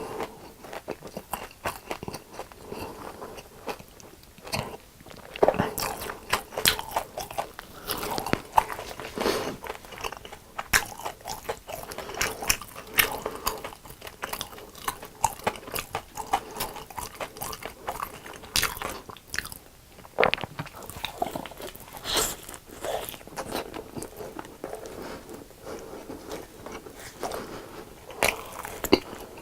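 Crisp deep-fried food being bitten and chewed close to the microphone: irregular sharp crunches, some louder bites standing out.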